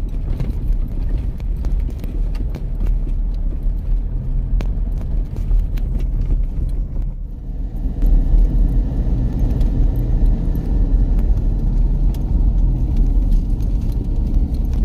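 A moving vehicle's ride noise: a steady low rumble of engine, tyres and wind. Short clicks and knocks run through the first half, on the rough dirt track. A change about 8 s in leaves a louder, smoother rumble, on the paved road.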